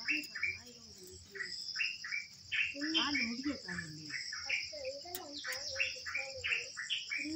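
Steady, high-pitched chirring of crickets, with a bird repeating short, quick chirps all through.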